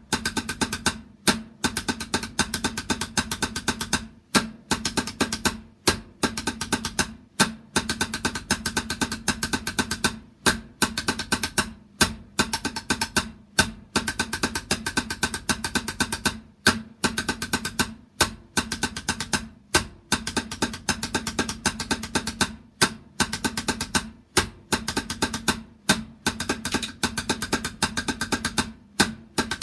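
A drum played by hand in fast runs of strokes, in short phrases broken by brief gaps about every second and a half.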